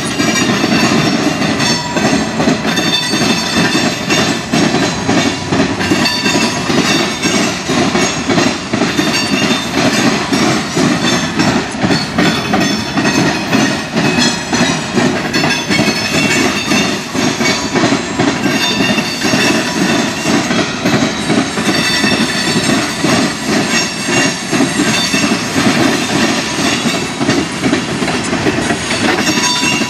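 Freight train cars (flatcars, covered hoppers and tank cars) rolling past close by: a steady rumble with continuous clickety-clack of steel wheels over the rail joints and crossing tracks. Thin, high wheel squeal rises and fades at times over the rumble.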